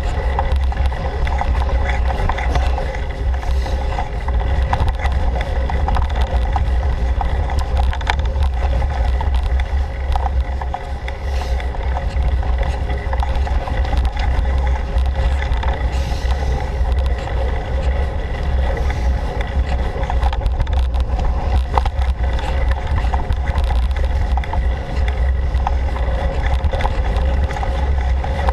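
A bicycle ridden fast over a dirt forest trail: a steady heavy rumble from the tyres and wind buffeting the camera, with small rattles and clicks from the bumps throughout.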